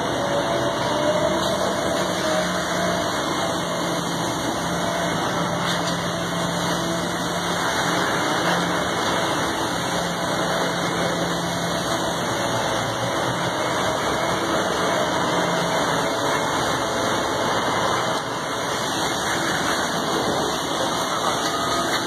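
Heavy machinery engines running steadily during concrete pumping: a continuous engine drone with a faint low hum and no breaks.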